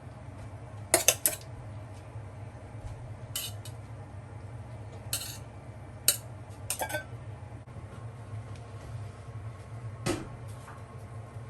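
Cutlery clinking and scraping against dishes or cookware in a handful of separate knocks, the loudest few close together about a second in. A steady low hum runs underneath.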